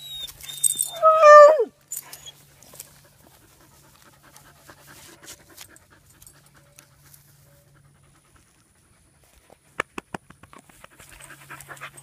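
Basset hound giving one short, loud bay that falls steeply in pitch, about a second in. A few sharp clicks follow near the end.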